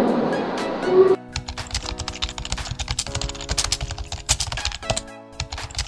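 Background music that cuts about a second in to an outro tune: held synth chords that change in steps, with a fast run of sharp clicks like keyboard typing over them.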